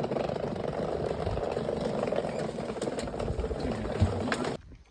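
Steady vehicle cabin noise from engine and road, with a few light clicks; it cuts off suddenly near the end.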